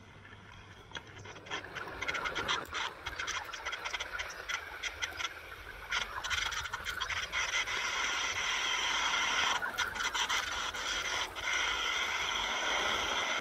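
Dapol Class 68 OO gauge model locomotive running on its track: the small electric motor and gears whine steadily while the wheels rattle and click over the rail joints, growing louder over the first few seconds.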